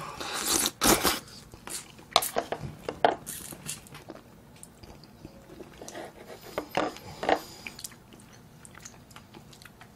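Close-up eating sounds of Andong jjimdak with glass noodles: slurping and chewing, with irregular wet mouth clicks and smacks. The sounds are loudest in the first second and come again in short bursts at about three and seven seconds.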